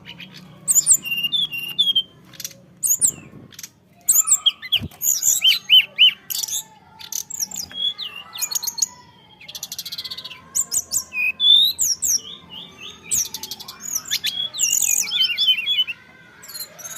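A songbird in full, active song: a dense, varied run of high chirps, whistles, quick trills and sweeping glides in clustered bursts.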